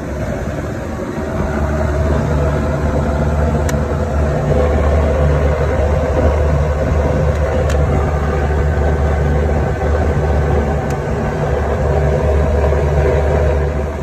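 Trane Precedent rooftop HVAC unit running, its two compressors and fans making a steady, loud machine hum that swells over the first couple of seconds and then holds.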